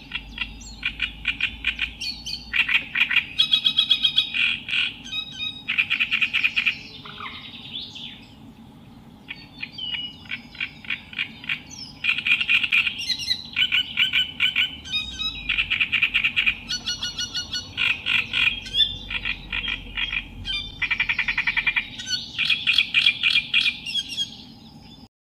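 Songbird singing in bursts of rapid, chattering repeated notes, phrase after phrase with short pauses, quieter for a few seconds about a third of the way in. A faint steady hum runs underneath.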